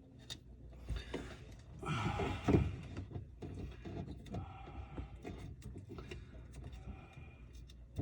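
Work-handling noise: scattered clicks and knocks, with a louder scraping, rustling stretch about two seconds in.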